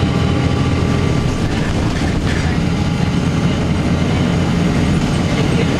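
Blue Bird CS transit bus's Cummins ISC inline-six diesel running steadily, a low drone with road noise over it.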